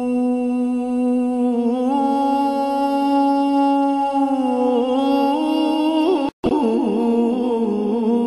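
A man singing a long, steady held note without words in a Sufi devotional song. The note steps up a little about two seconds in and wavers near the end, and the sound cuts out for a split second about six seconds in.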